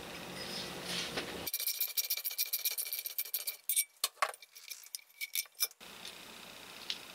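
Small metal parts of a disassembled electric blower being handled: softer rubbing at first, then a quick, irregular run of light metal clinks and taps that stops suddenly near the end, leaving quieter handling noise.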